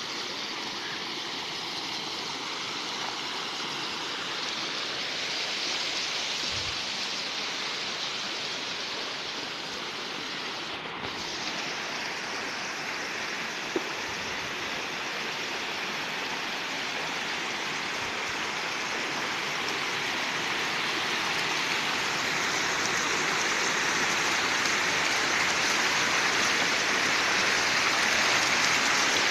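River water rushing through a narrow gap in a stacked-stone weir and splashing over a slatted bamboo fish trap, a steady rush that grows louder toward the end. One brief sharp click about halfway through.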